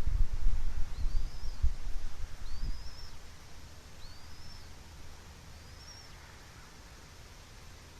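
A bird gives a short, high, upslurred chirp about five times, roughly every second and a half. A low wind rumble on the microphone fades out over the first three seconds.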